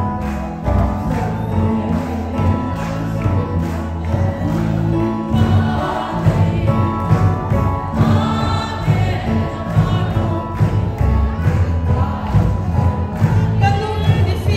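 Gospel worship music with many voices singing together over a steady drum beat and heavy bass.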